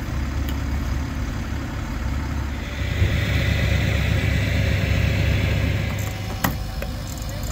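Flatbed tow truck engine running steadily at idle while an SUV is winched onto the tilted bed. A hiss swells and fades in the middle, with a sharp knock about three seconds in and another about six and a half seconds in.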